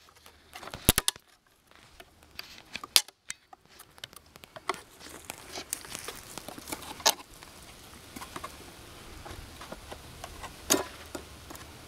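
Scattered sharp clicks and knocks with light pattering and rustling between them, like small objects being handled; a soft steady hum sets in over the second half.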